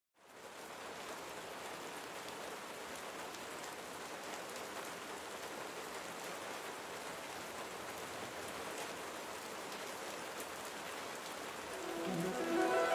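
Rain falling steadily, fading in at the start. Music begins to swell in near the end.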